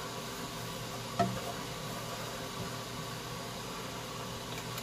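A steady hiss with a faint hum, and one short knock about a second in as a wooden spoon strikes the side of a pot of simmering tomato sauce.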